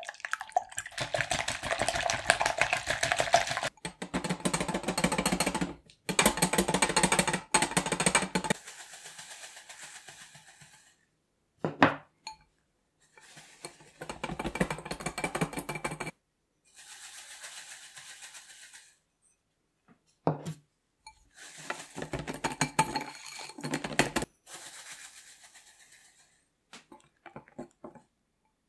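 Wire balloon whisk beating egg whites in a glass bowl, the wires clicking and rattling rapidly against the glass, in several bursts a few seconds long. The whites are being whipped from a loose foam into meringue.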